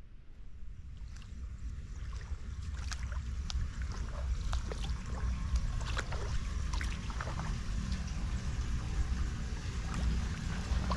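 Wind buffeting the microphone as a steady low rumble that slowly grows louder, with scattered sharp ticks and clicks from about a second in.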